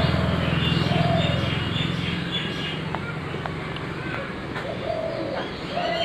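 A dove cooing in short low calls several times, with small birds chirping faintly. A low vehicle engine hum fades away over the first two seconds, and there are a couple of sharp clicks about three seconds in.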